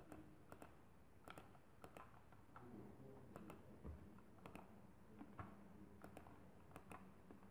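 Faint computer mouse clicks, single and in quick pairs, roughly one every half second to second, as materials are painted onto a model in SketchUp.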